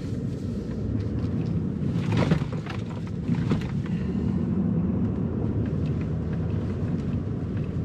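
Pickup truck driving slowly on a rough dirt road, heard from inside the cab: a steady low rumble of engine and tyres, with a few short knocks and rattles about two and three and a half seconds in.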